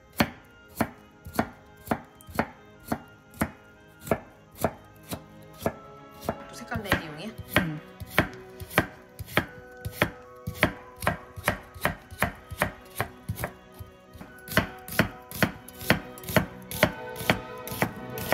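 Chef's knife slicing cucumber, then carrot, then onion against a wooden cutting board: a steady run of crisp chops, about two a second.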